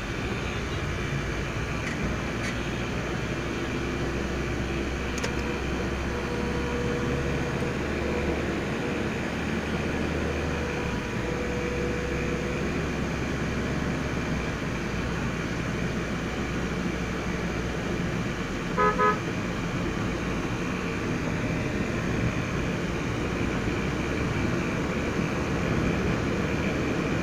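Steady engine and road noise heard from inside a moving car, with a car horn beeping twice in quick succession about two-thirds of the way through.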